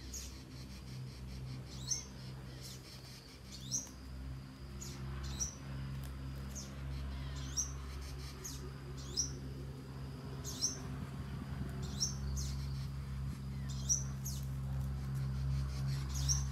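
A small bird's short, high chirp, rising and then held briefly, repeated about every one and a half to two seconds over a steady low hum.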